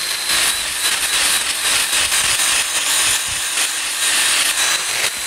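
Cordless drill boring a hole through a thick live mesquite branch, running steadily under heavy load in the very hard wood.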